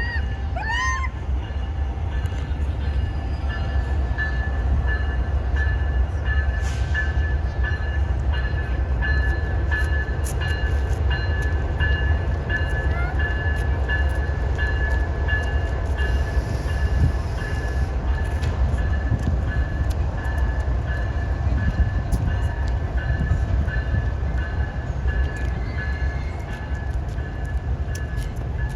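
Train rolling past with a heavy, steady low rumble. A high tone pulses about twice a second through most of it, and a few short rising chirps are heard near the start.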